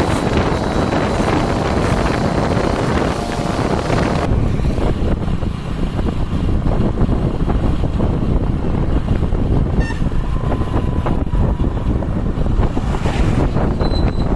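Wind buffeting the microphone over the road and engine noise of a moving vehicle. For the first few seconds a vehicle passing close alongside adds a louder rushing sound, after which a steady low rumble continues.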